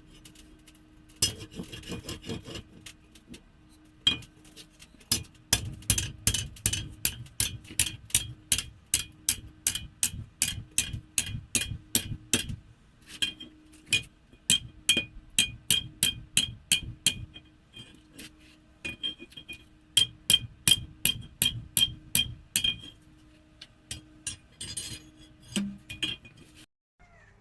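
Hammer blows on an anvil, about two a second in runs of several seconds, each with a bright metallic ring: hot coil-spring steel being forged and bent over.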